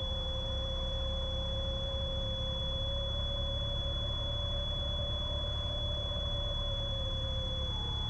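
Cessna 170B's six-cylinder Continental engine and propeller running at reduced power in a slow, full-flap descent, heard from inside the cockpit as a steady low drone. A thin high tone rides over it throughout, and a humming mid tone steps up in pitch near the end.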